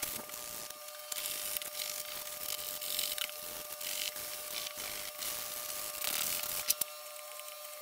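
Loose cut-out pieces of kauri pine being worked free by hand from a freshly CNC-carved panel: scratchy wood-on-wood rubbing with many small clicks and knocks, over a faint steady hum.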